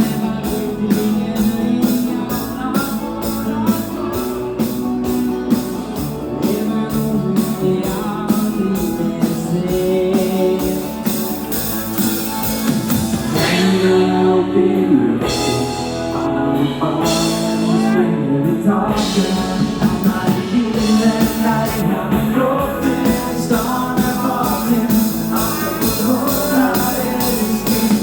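Pop-rock music with a steady drum beat, guitar and singing.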